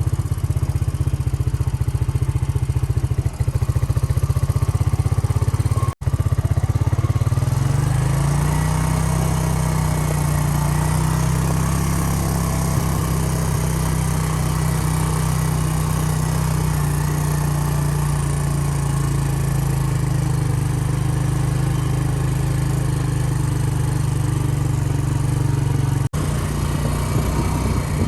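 Truck engine running steadily while hauling a loaded hay trailer, its pitch rising a little about eight seconds in; the sound breaks off for an instant twice.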